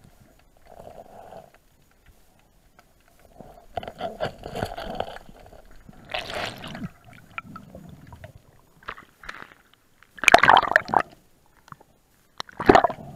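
Water gurgling and bubbling around a submerged camera, in irregular bursts, the loudest about ten seconds in and another near the end.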